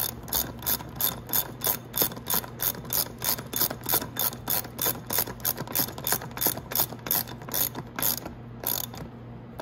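Ratchet wrench with a 19 mm socket clicking in quick, even strokes, about three a second, as it runs the axle nut down on an ATV's front wheel; the clicking stops near the end.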